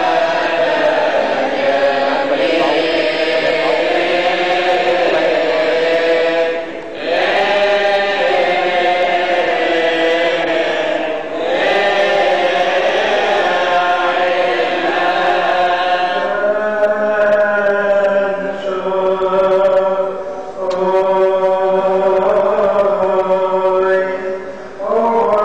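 A Coptic Orthodox priest chanting the Gospel through a microphone in long, sustained melismatic phrases, with a few brief breaks for breath.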